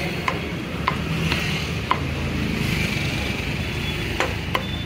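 Meat cleaver chopping roasted pork ribs on a thick wooden chopping block: about six sharp knocks, four in the first two seconds and two more near the end, over a steady low background hum.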